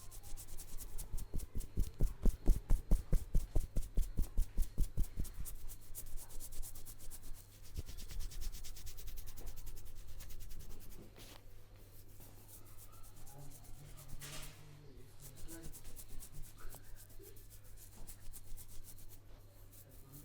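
Head massage: hands rubbing and stroking the scalp and hair. A fast rhythmic run of strokes, about four a second, gives way after about six seconds to a few seconds of steady rubbing, then softer, uneven rubbing.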